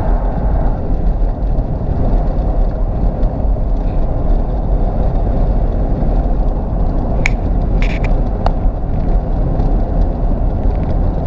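Steady low rumble of a car's road and engine noise heard from inside the cabin while driving, with a few brief clicks about two-thirds of the way through.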